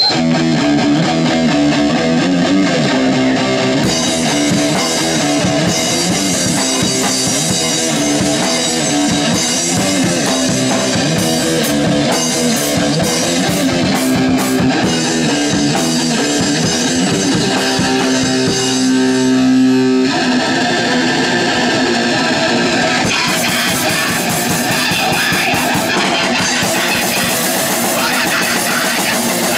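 A crust punk band playing loud and fast: distorted electric guitar over a drum kit. The guitar holds a note for a couple of seconds about two-thirds through, then the band comes back in.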